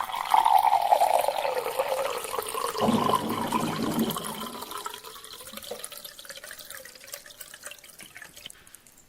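Water pouring into a drinking glass: a continuous splashing pour, loudest in the first few seconds and growing fainter over the second half.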